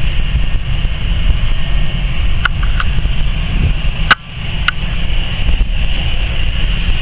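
Jet airliner's engines running steadily as the aircraft moves along the runway, a steady whine over a low rumble with wind buffeting the microphone. A few sharp clicks come in the middle, the loudest about four seconds in.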